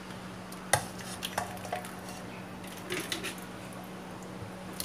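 A spatula knocking and scraping against an aluminium pot as pieces of boiled cassava are lifted out, with a few sharp clicks about a second in, around three seconds and at the end.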